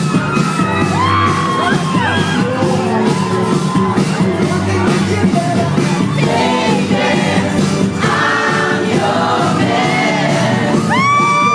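Pop music with singing over loud speakers, and a crowd screaming and whooping throughout; one high shriek rises and holds near the end.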